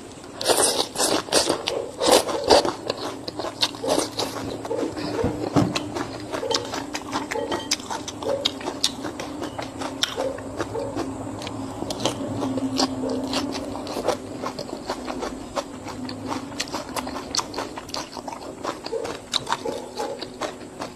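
Close-up eating sounds: a person biting and chewing food, with many sharp, crunchy, wet mouth clicks, densest in the first few seconds.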